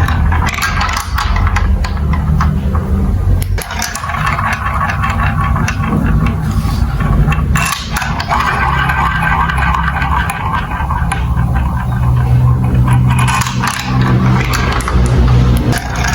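Marbles rolling and rattling through a plastic building-block marble run track: a continuous rolling rumble with many small clicks as the marbles knock against the track pieces.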